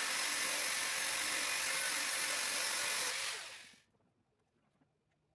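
Grinder running steadily at full speed, cutting a rotary bit, then switched off and winding down to a stop about three and a half seconds in. Faint small ticks follow.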